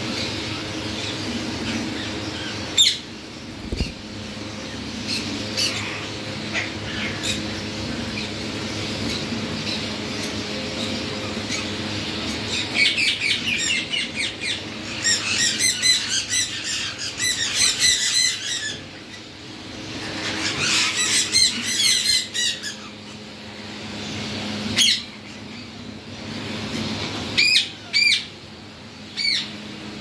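Indian ringneck parakeets calling: several bouts of quick repeated calls, the longest about halfway through and another near the end, over a steady low hum.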